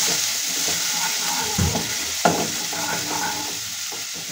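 Chopped garlic sizzling in hot mustard oil with cumin and coriander seeds in a non-stick kadhai, stirred with a wooden spoon that scrapes and knocks against the pan a couple of times about halfway through. This is the garlic being sautéed for the tadka.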